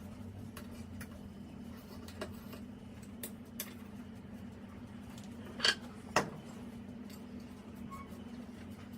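Two sharp clinks about half a second apart, with a few fainter ticks, over a steady low hum.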